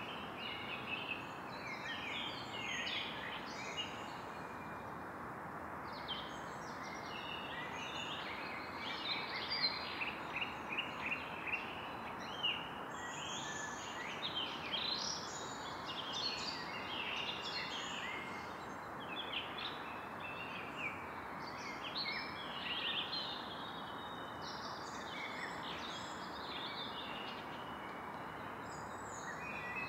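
Evening forest ambience: a chorus of many birds singing and calling over a steady hiss, busiest about a third of the way in.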